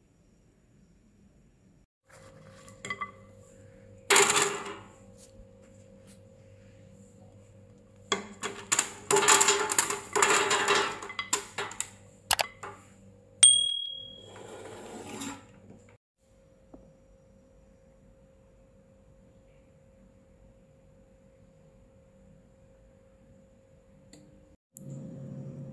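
Whole almonds clattering and rattling as they are tipped into a Philips air fryer basket, with a dense run of clicks lasting several seconds. A single short beep from the air fryer's touch panel follows, and near the end the air fryer's fan starts with a steady whir.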